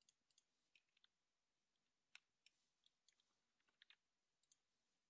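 Near silence broken by a dozen or so faint, scattered clicks of a computer mouse being used.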